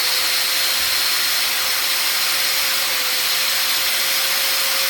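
A new Bosch 1375A 6-amp 4-1/2-inch angle grinder running free with no load: a steady motor whine over an even high hiss.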